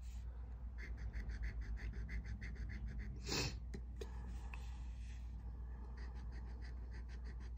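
A scratcher tool scraping the coating off a scratch-off lottery ticket in quick short strokes, about six a second, pausing in the middle. About three seconds in comes a single brief, louder sniff, the loudest moment.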